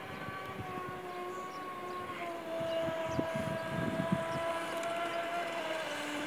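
Radio-controlled speedboat on a 6S battery, its electric motor giving a steady whine as it runs across the water. The pitch shifts about two seconds in and again near the end.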